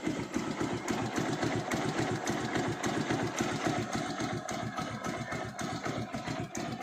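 Motorcycle engine idling steadily, with a fine tapping over the idle. The owner puts the 'tik tik' tapping down to timing-chain noise.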